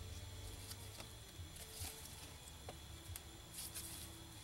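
Scattered light clicks and taps of tools and small metal transmission parts being handled during a teardown, over a steady low hum.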